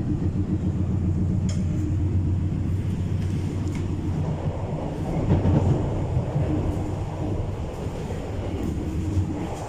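Disneyland Resort Line M-Train electric train running along the track: a steady low rumble of wheels and motors, with a couple of faint clicks from the rails.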